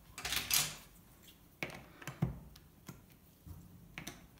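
Plastic Lego bricks being handled and pressed onto a baseplate: a brief rattle of bricks near the start, then several separate sharp plastic clicks.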